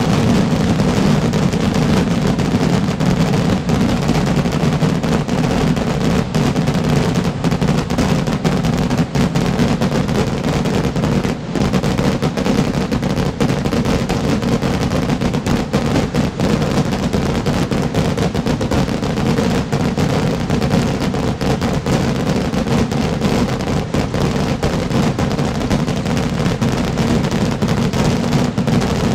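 Unbroken barrage of festival fireworks rockets bursting, the bangs so rapid and overlapping that they run together into a steady, dense rattle with no pause.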